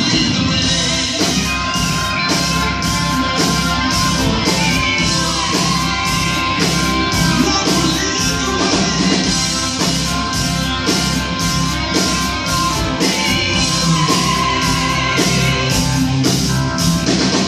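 Live rock band playing: electric guitars, keyboards and a drum kit keeping a steady beat, with voices singing over them.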